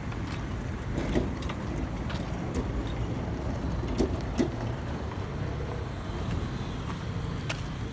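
Steady low rumble of vehicle and road traffic noise, with a few scattered clicks and knocks.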